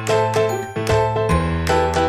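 Background music: a light, tinkling children's tune with a bass line, a new note roughly three times a second.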